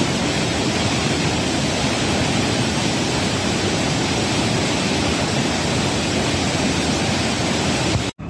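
Loud, steady rush of a white-water torrent pouring out of a rock tunnel into a gorge. It cuts off abruptly just before the end.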